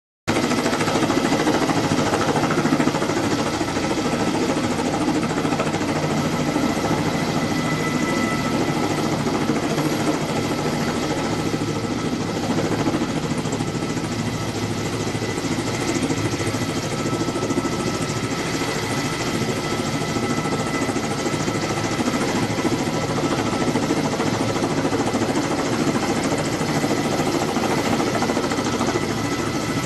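Kamov Ka-32A11BC helicopter hovering low, its coaxial rotors and turboshaft engines running steadily with a high whine over the rotor noise. The sound cuts in after a brief moment of silence at the very start.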